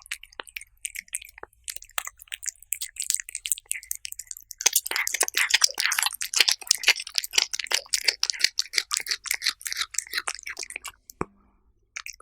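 Cats chewing and crunching food: a fast, irregular run of sharp clicks that thickens about four and a half seconds in and breaks off briefly near the end.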